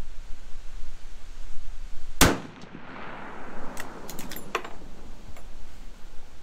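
A single shot from a Marlin 336 lever-action rifle in .30-30 Winchester about two seconds in, its report echoing for about a second. Shortly after come a few quick sharp metallic clicks as the lever action is worked.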